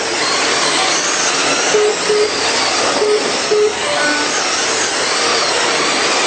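Radio-controlled race cars running on the track, their motors making a steady high-pitched mechanical noise. A few short beeps come in pairs about two and three seconds in.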